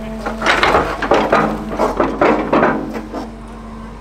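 Wheeled excavator loading a dump truck: a bucketful of soil and stones clattering into the truck's steel bed in a rapid run of knocks, over the steady hum of the diesel engines.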